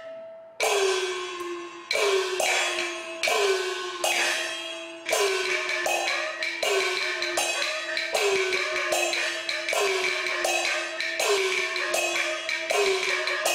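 Chinese opera percussion accompanying a stage fight: gong strokes whose ringing pitch drops after each hit, with cymbal crashes, repeating about two times a second.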